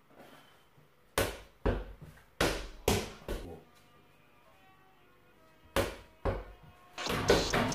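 A football being juggled: a run of five thuds about half a second apart, then two more a few seconds later, and a busier stretch of touches near the end.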